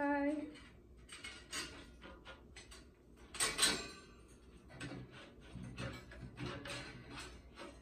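Parts of a two-tier metal wire dish rack clinking and knocking together as the wire basket is fitted onto its curved frame: scattered light metallic clicks, the loudest about three and a half seconds in.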